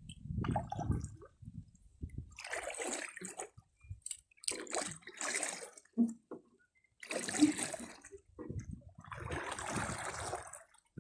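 Water sloshing and splashing against a canoe hull in four short bursts, each about a second long.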